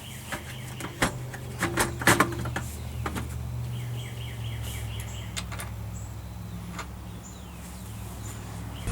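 Irregular clicks and knocks of hand tools and metal parts while the steering wheel's nut is tightened onto the helm shaft, thickest in the first three seconds, over a steady low hum. A few short bird chirps come about four seconds in.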